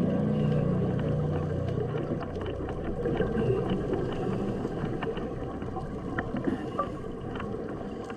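Underwater ambience: a steady low rumble and hiss with scattered crackles and clicks. Low sustained musical tones fade out in the first two seconds.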